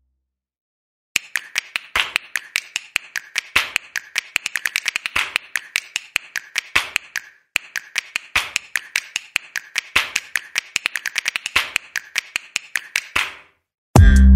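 Kitchen knife chopping green onions on a cutting board: quick, steady taps, about five a second, in two long runs with a brief pause about halfway through.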